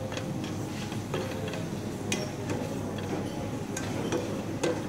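Slotted plastic spatula knocking and scraping against a black frying pan as chicken fajita filling is stirred: irregular light clicks, several over a few seconds, over a steady hiss.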